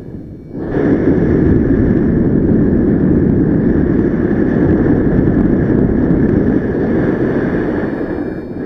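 Wind rushing over the microphone of a paraglider pilot's camera in flight, rising sharply about half a second in and then holding steady.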